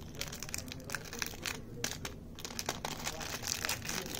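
Chocolate bar's plastic wrapper crinkling and crackling as it is handled in the fingers, a dense run of irregular crackles.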